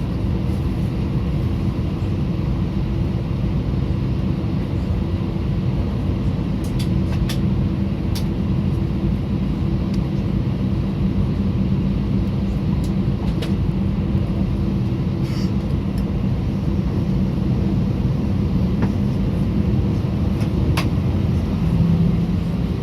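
Airbus A320 cabin drone from its jet engines running steadily, with a low steady hum and a few faint clicks.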